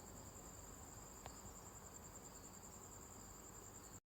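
Faint, steady chirping of crickets, a high, finely pulsing trill, with one short click about a second in. The sound cuts out for a moment just before the end.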